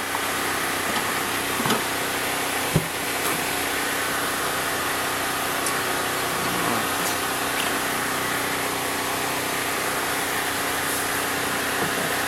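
A steady engine-like drone with a constant hum, and a couple of light clicks in the first few seconds.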